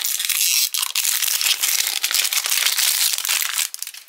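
A small cardboard blind box being torn and worked open by hand, its packaging crackling and crinkling in a dense run of small crackles that stops about three and a half seconds in.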